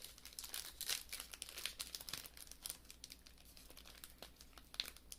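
Foil wrapper of a Pokémon trading card booster pack crinkling as it is handled and pulled open, a rapid run of small crackles.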